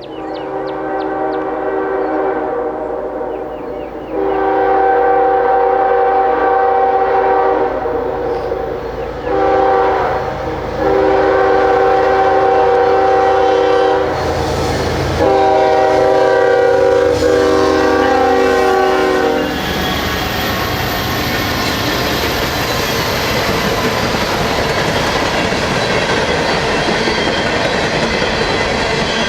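Norfolk Southern GE ES40DC locomotive's horn sounding a chord in a series of blasts, mostly long with one short, growing louder as the train approaches. About two-thirds of the way in the horn stops, and the locomotives and empty coal hoppers pass close by with a loud, steady rumble of wheels on rail.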